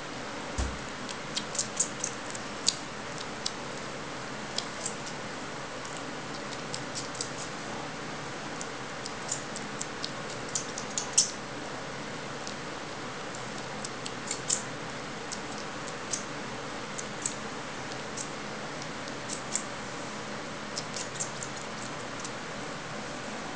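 Black cat sucking on a person's skin: small smacking clicks at an uneven pace, a few a second, over a steady background hiss.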